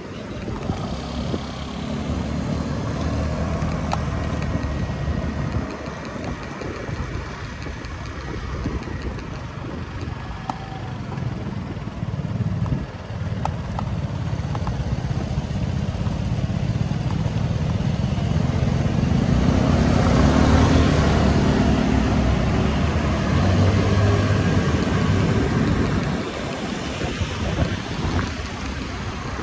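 Riding a motor scooter in city traffic: steady engine and road rumble with a rushing noise over it, louder for several seconds past the middle.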